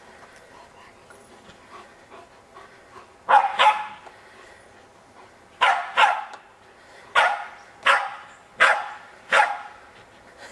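West Highland white terriers barking: a string of about eight short, sharp barks starting about three seconds in, some in quick pairs.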